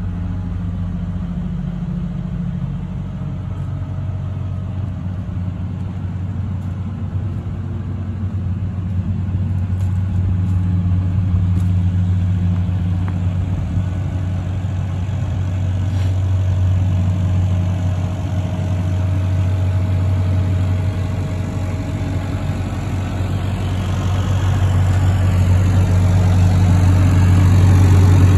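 JCB 8055 RTS mini excavator's diesel engine idling steadily, growing louder near the end.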